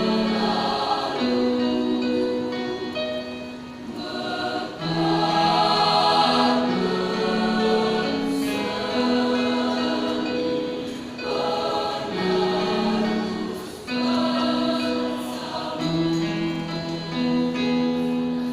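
Choir singing in several parts, in phrases of long held notes; the singing falls away near the end.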